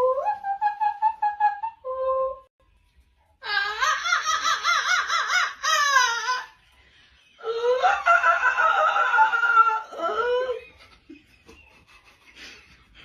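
High-pitched laughter: a few held, stepped voice notes at the start, then two long bursts of rapid, warbling laughing, the second ending about ten seconds in.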